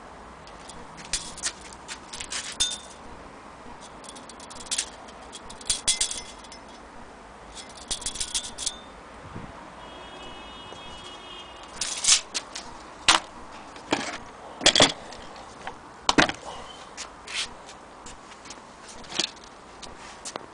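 Irregular sharp metallic clicks and clacks, some ringing briefly, from handling an antique cast-iron Singer sewing machine head and a steel tape measure. The loudest strikes come in the second half.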